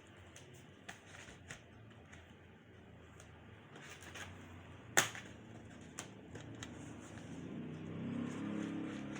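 Small sharp clicks and taps of plastic and metal laptop parts being handled during disassembly, with one loud sharp click about five seconds in. A faint low hum rises near the end.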